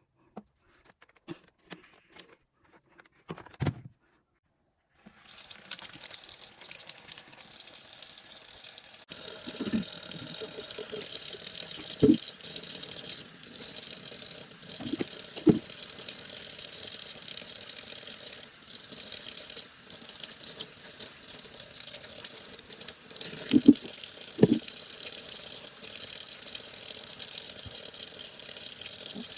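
Water running from a tap into a sink, turned on about five seconds in and running steadily, as the Shark vacuum's filter is washed. A few light clicks and taps of handling come before it, and several short knocks come while the water runs.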